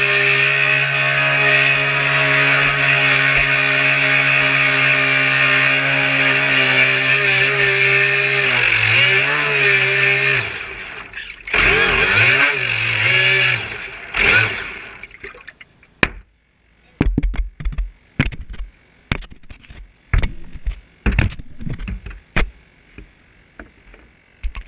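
An RC boat's motor running at a steady pitch, wavering about eight seconds in, then cutting out. It comes back in two short bursts and stops. Then come a series of sharp irregular clicks and knocks.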